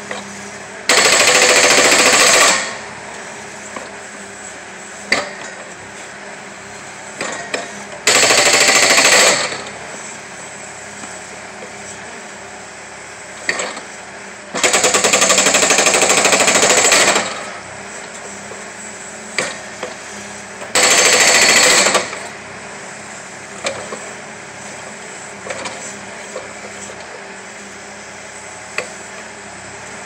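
Excavator-mounted hydraulic breaker hammering into a firewood round to split it, in four bursts of rapid hammering, the longest about two and a half seconds. Between bursts the carrier machine runs steadily, with a few short knocks.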